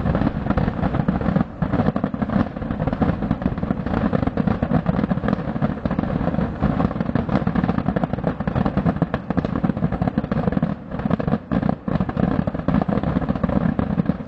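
Thousands of fireworks rockets and firecrackers going off together in one continuous dense crackle and rumble, with brief lulls about a second and a half in and twice more toward the end.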